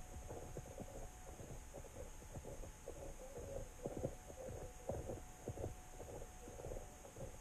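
Muffled underwater sound from an under-ice camera: a low rumble and hum with irregular soft thumps, the strongest about four and five seconds in.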